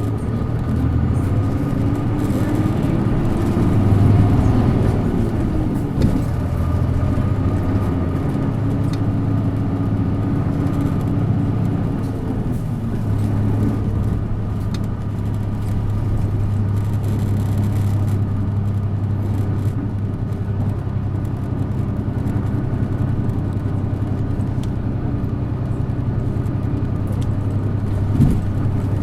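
Isuzu Erga city bus's 6HK1 six-cylinder diesel running under way. The engine note climbs over the first few seconds, drops back at a click about six seconds in, then holds steady with a sharp knock near the end.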